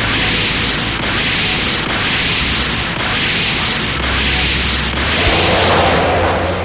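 Anime battle sound effects: a continuous explosive rumble of energy blasts clashing, swelling roughly once a second over a low steady hum.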